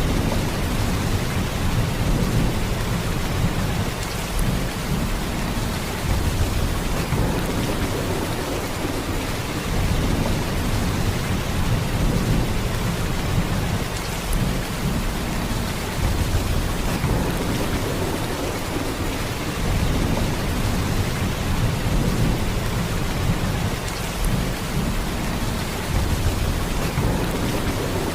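Heavy rain falling in a steady downpour, a dense even hiss with a deep low rumble that swells and eases every few seconds.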